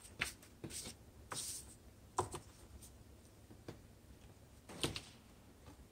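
Faint scattered clicks and short scrapes of a steel dial caliper being handled and set against a paper target on a bench, about five small sounds in all.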